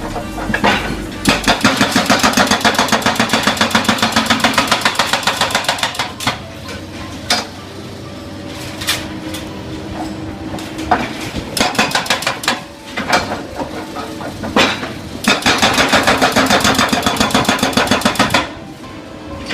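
Hydraulic hammer breaker on a backhoe excavator pounding in two long runs of rapid, evenly spaced blows, several a second, starting about a second in and again near the end. Between the runs come scattered single knocks over the machine's engine running.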